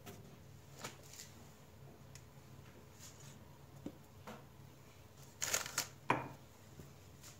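Hands working flour into soft bread dough in a plastic tub: faint rustling and squishing with scattered light knocks, a cluster of them about five and a half seconds in and the loudest single knock just after six seconds.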